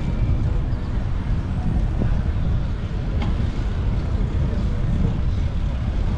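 Steady low rumble of wind buffeting the microphone of a moving bicycle, mixed with street noise.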